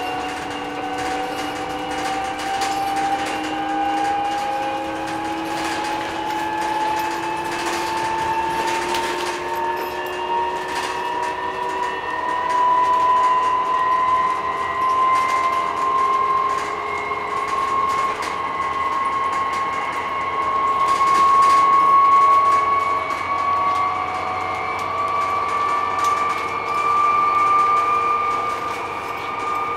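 Inside a BYD K9M battery-electric bus on the move: the electric drive's whine rises slowly and steadily in pitch as the bus gains speed, with scattered rattles and knocks from the body and the road.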